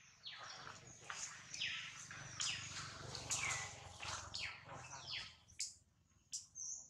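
High-pitched animal chirps in quick succession, each sweeping down in pitch, thick in the first few seconds and thinning out near the end.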